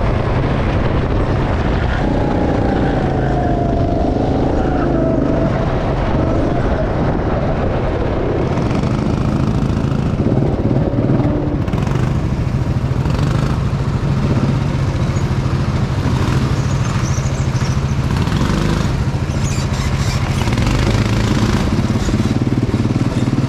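Go-kart engine running, heard from the driver's seat. Its pitch rises and falls for the first several seconds, then settles into a lower, steady drone as the kart slows into the pit lane.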